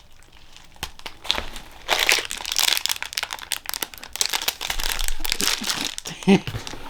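Packaging crinkling and rustling in quick irregular crackles as an item is unwrapped by hand, busiest about two seconds in.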